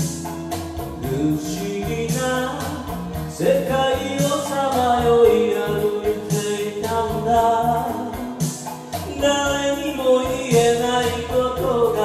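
A man singing a slow J-pop song over a karaoke backing track, with drums keeping a steady beat.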